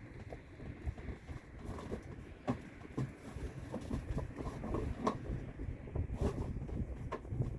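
Wind rumbling on the microphone, with irregular knocks and clicks scattered throughout.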